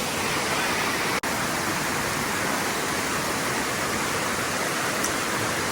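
Steady rushing of a waterfall and stream, a wide even hiss, which cuts out for an instant about a second in.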